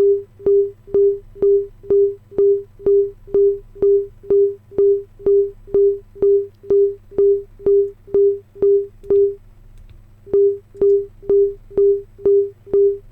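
A 400 Hz sine-wave sample retriggered from a Native Instruments Maschine pad in its S1200 engine mode with no filter: short, steady beeps about twice a second, each opening with a click. The beeps pause briefly about nine seconds in, then resume.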